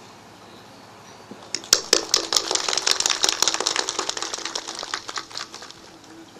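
Audience applauding: a dense patter of hand claps that starts about a second and a half in, holds, and dies away near the end.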